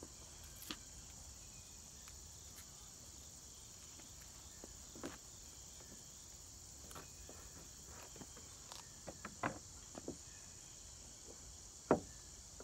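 A steady high insect chorus, with scattered light clicks and knocks as a mounting bracket and hand tools are handled against the kayak hull; the sharpest knock comes just before the end.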